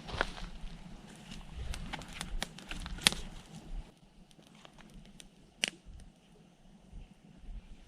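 Dry wood crackling and snapping in sharp, irregular cracks. They come thickly for the first few seconds, then thin to a few isolated snaps, the loudest a little before six seconds in.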